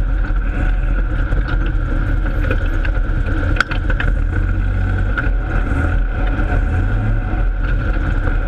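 Holden Torana open-sedan race car's engine running steadily, heard from inside the cabin as a loud, even low drone. Scattered sharp knocks and rattles sound over it, the strongest about three and a half seconds in.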